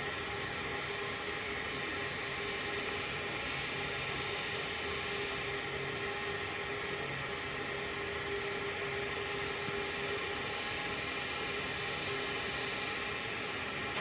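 Natural-gas HVAC unit running steadily with a whir and faint hum in its pre-ignition stage while it tries to light. The burner fails to ignite, an intermittent no-ignition fault.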